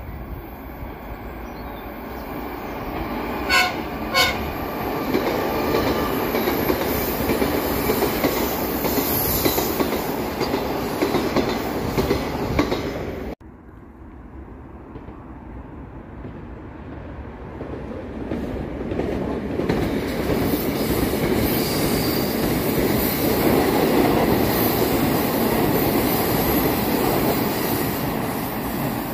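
Moscow Metro trains running past on open surface track. The first approaches with two short horn toots about four seconds in and grows louder until the sound cuts off abruptly about halfway through. A second train then builds up and runs close by, its wheels clattering over the rails.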